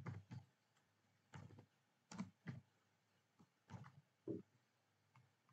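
Faint computer keyboard keystrokes, about eight scattered taps at an uneven pace.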